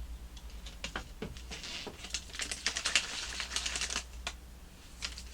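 Lidded container of snow cone flavour syrup being shaken to mix powder into water, giving a rapid, irregular clatter of clicks that is thickest in the middle.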